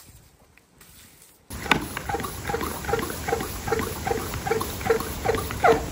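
Hand pump of a pump-up garden sprayer being worked to pressurise it, at about two and a half strokes a second, with a squeaky note on each stroke. The pumping starts about a second and a half in.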